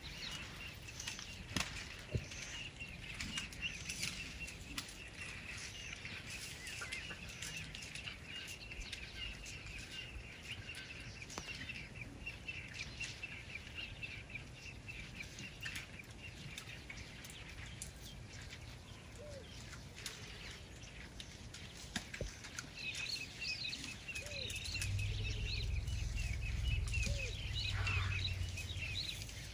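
Small birds chirping over and over in a high, steady chorus, with scattered sharp snaps and cracks throughout. A low rumble swells up over the last few seconds.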